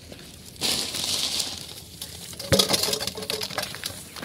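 Dry puffed rice and crisp sev rustling and pattering under a hand as they are sprinkled and spread over paper plates, with a burst of rustling about half a second in and scattered small clicks later.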